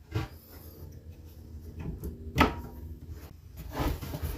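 Plywood cabinet pieces being handled and fitted together: a few wooden knocks, the loudest about halfway through, with some rubbing and scraping of wood between them.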